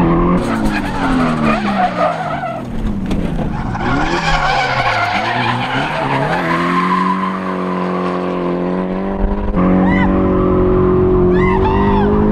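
Drift car sliding with its tires skidding: the engine's pitch swings up and down as the throttle is worked, then holds a steady high rev for the last several seconds.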